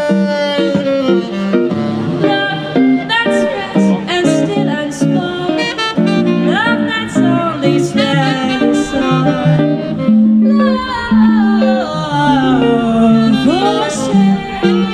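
Live small-group jazz: a woman singing over electric guitar accompaniment, with a saxophone also playing.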